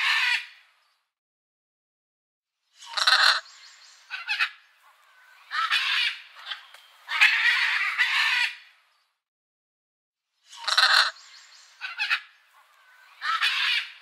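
Parrots squawking: harsh, loud calls in bursts of one to two seconds with short silent gaps. The same run of calls comes around twice, like a looped recording.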